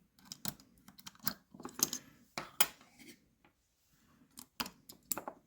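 Small metal parts of a dismantled lever safe lock being handled on a hard surface: a series of irregular light clicks and metallic clinks with short pauses between them.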